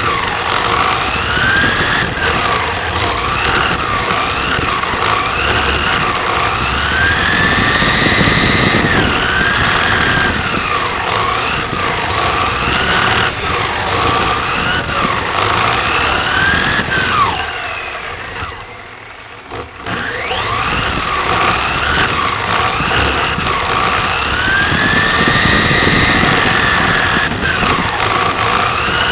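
Electric motor and gear drive of a 1/10-scale VTA RC touring car whining, its pitch rising and falling over and over with throttle through the corners and straights. About two-thirds of the way in it drops away for a couple of seconds, then picks up again.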